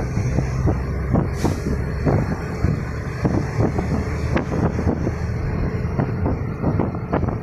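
Engine and road noise from a moving vehicle, with a deeper engine hum at the start as a large truck is passed. Frequent short knocks and buffeting run through it, and a brief hiss comes about a second and a half in.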